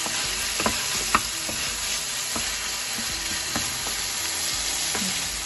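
Minced beef sizzling in hot oil in a pan, with a steady frying hiss. It is stirred with a wooden spatula that clicks and scrapes against the pan now and then.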